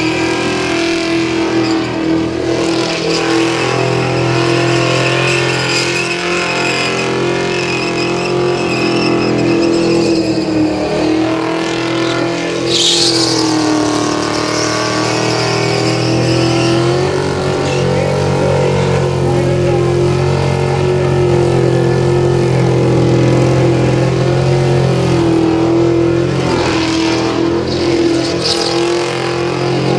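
Ford XD Falcon's 351 V8 held at high revs in a burnout, rear tyres spinning. The revs sag and climb back about twelve seconds in, with a brief high-pitched screech there and again near the end.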